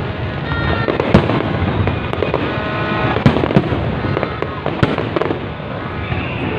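Aerial firework shells bursting during a fireworks display: a run of sharp bangs about once a second over a continuous rumble and crackle.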